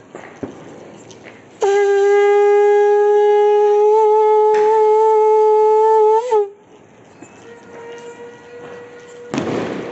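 Conch shell (shankh) blown in one long, loud, steady note lasting about four and a half seconds, ending with a short wobble in pitch. Afterwards a fainter steady tone sounds, with a short rush of noise near the end.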